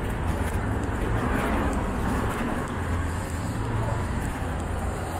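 City street traffic: a steady noise of cars running along a wide avenue, with indistinct voices of passersby.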